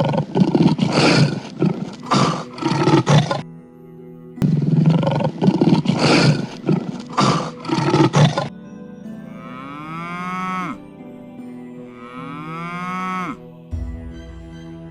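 A cartoon sound effect of a cow mooing, repeated three times in the second half as the same long call. Before it, a harsh, rasping clip plays twice, all over background music.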